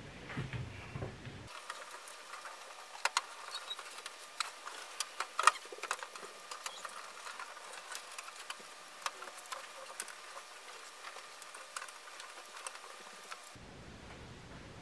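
Scattered light clicks, taps and knocks of a furnace air filter being handled and slid into place inside the furnace cabinet, with a sharper knock about five and a half seconds in.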